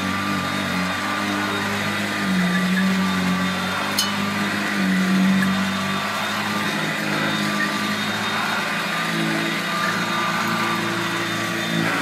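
Hoover Junior 119 upright vacuum cleaner running while pushed across carpet, its brush roller turning on freshly refurbished roller bearings: a steady motor hum that shifts a little in pitch and strength as it moves. A single sharp click about four seconds in.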